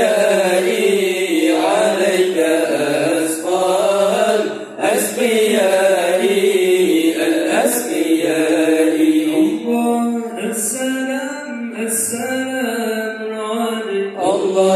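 A group of men chanting Acehnese dike, devotional sholawat verses, sung into microphones and amplified. The singing is continuous and loud, with no instruments.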